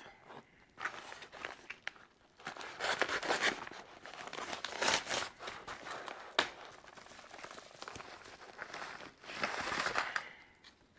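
Padded paper mailer envelope being cut and torn open with a pocketknife, the paper tearing and crinkling in bursts, with a single sharp tap about six seconds in. Near the end a plastic bag crinkles as it is pulled out of the envelope.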